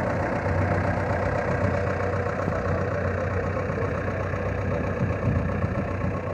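Fishing boat's engine running steadily: a constant low hum with a mid-pitched drone over it.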